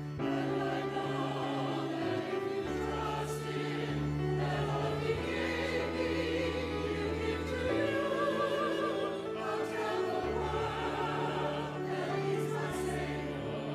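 Church choir singing with vibrato over sustained low accompanying notes that shift every few seconds.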